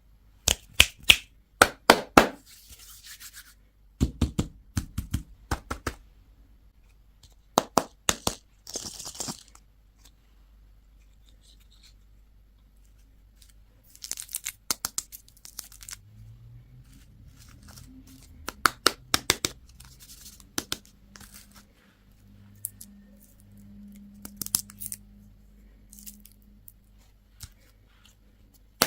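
Close-up handling and opening of candy and toy packaging: bursts of crinkling, tearing and clicking plastic wrappers, in several separate spells with quiet gaps between.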